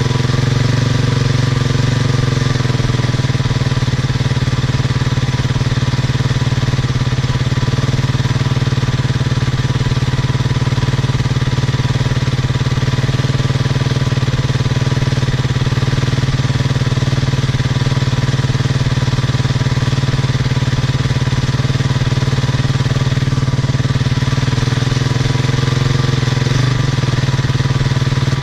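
Husqvarna TE250 enduro motorcycle engine idling steadily while it warms up on the choke after standing unused for a while.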